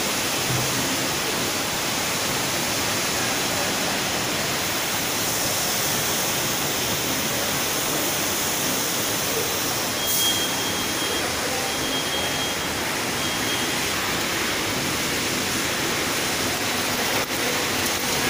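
Steady, even rushing noise of an automatic popcorn processing line running. There is a sharp click about ten seconds in, followed by a faint high tone in short stretches, and a few clicks near the end.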